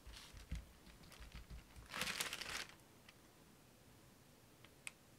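Faint handling noises from a freshly base-coated canvas being gripped and moved on the covered work table: a few soft bumps, then a brief crinkling rustle about two seconds in.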